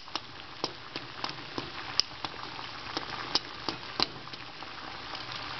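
Water boiling hard in a saucepan on a stove: steady bubbling with frequent irregular sharp pops and ticks.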